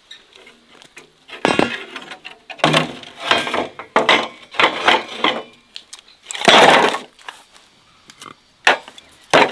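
Split firewood logs knocking and scraping as they are laid by hand into a rusty metal fire pit: a series of separate wooden knocks, with a longer, louder scrape about two-thirds of the way through.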